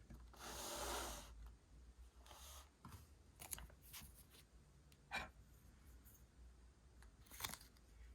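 Quiet paper and stationery handling during journal decorating: a paper rustle about half a second in, a softer one around two and a half seconds, then a few light clicks and taps.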